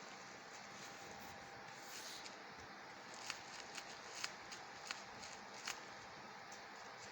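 Bubble wrap crinkling and clicking under a cat's paws as it plays with a toy: a handful of sharp, separate clicks, most of them a few seconds in, over a faint steady background.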